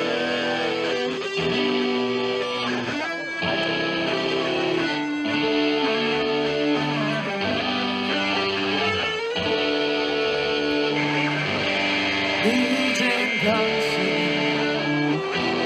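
Live band music led by electric guitars, with a sharp hit about every two seconds.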